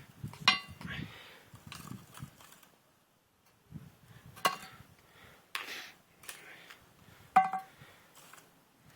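Hot coals being set one by one onto an upturned Dutch oven lid: a few sharp metallic clinks with short ringing, four louder ones spread through, with softer scraping and handling between.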